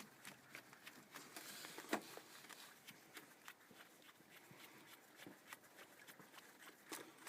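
Near silence with faint, scattered small clicks, a slightly sharper one about two seconds in, as a nut is turned down by hand onto a ground-wire eyelet on an engine bolt.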